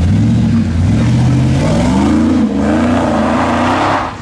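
Ford F-150 pickup's engine revving as it accelerates away. Its pitch climbs, drops briefly about halfway through, then climbs again.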